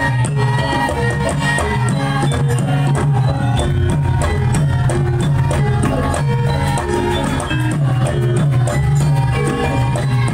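Javanese gamelan music accompanying a Lengger dance, with drums keeping a steady beat under quick pitched percussion notes.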